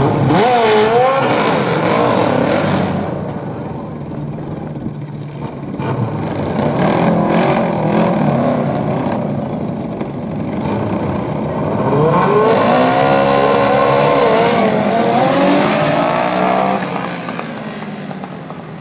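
Racing lawn mower engines revving hard and accelerating down the drag strip, their pitch rising: a short run right at the start and a longer one from about twelve seconds that fades near the end.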